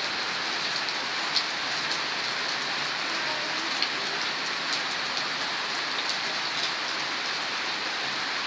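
Steady rain falling, an even hiss with scattered sharper drop taps, two of them standing out about a second and a half and four seconds in.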